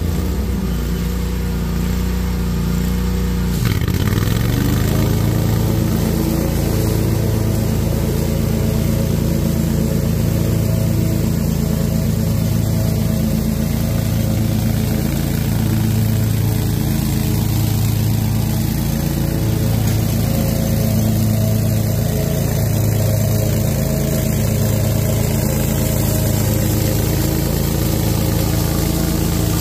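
Toro Proline 60-inch commercial mower with a blower attachment running steadily at working speed while collecting leaves. About four seconds in, the engine dips sharply in pitch and quickly recovers.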